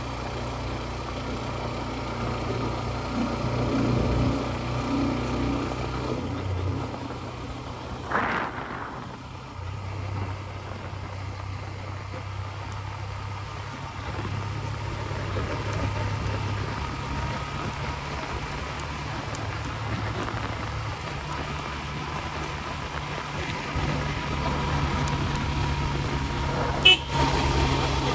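TVS Ntorq 125 scooter's single-cylinder engine running steadily on the ride, with a vehicle horn tooting briefly about eight seconds in. Near the end comes a single sharp knock, the loudest sound.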